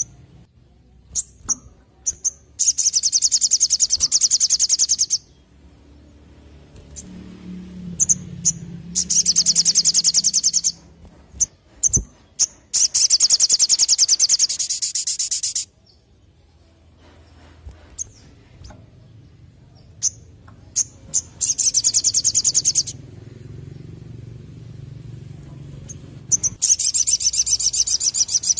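Olive-backed sunbird (sogon) singing: five rapid, high rattling trills of two to three seconds each, with short sharp chirps in the gaps between them.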